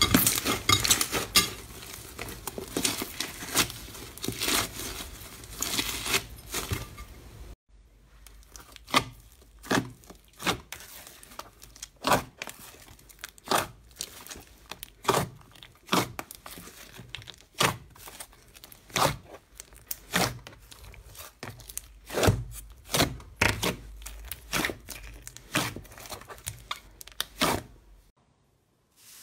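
Slime kneaded and pressed by hand: a dense crackle for about the first seven seconds, then, after a brief break, sharp pops about once or twice a second as the slime is squeezed.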